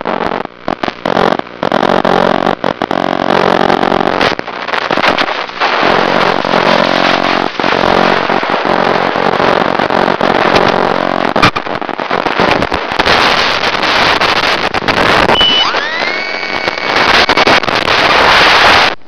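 Onboard audio from an RC model airplane's 900 MHz FPV video link: the motor and propeller running under heavy hiss and crackle, cutting out in many short dropouts as the signal breaks up. Near the end the motor's pitch rises as it is throttled up.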